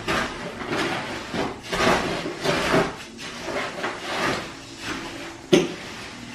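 Concrete being mixed by hand in a plastic mixing tub: repeated scraping strokes of the tool through the wet mix, with one sharp knock about five and a half seconds in.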